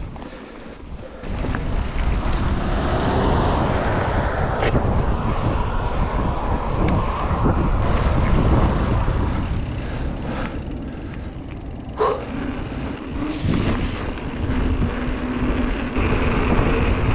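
Wind rushing over the camera microphone mixed with the rolling noise of mountain-bike tyres on tarmac and gravel, with a few sharp knocks from bumps.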